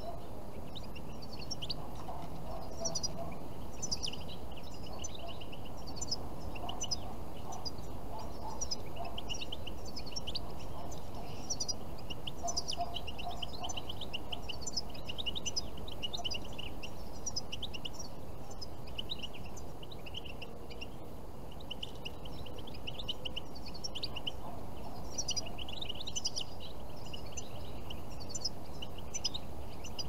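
European goldfinches twittering: many quick, high chirps and trills. Lower calls from domestic fowl come in now and then.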